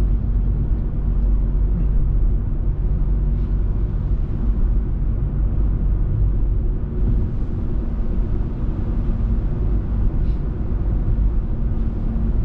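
Steady low rumble of engine and tyre noise inside the cabin of a car driving along a highway.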